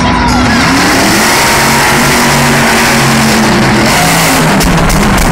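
Max-D monster truck's supercharged V8 engine revving hard through a run-up and jump over a line of parked monster trucks, the pitch rising and falling as the throttle changes.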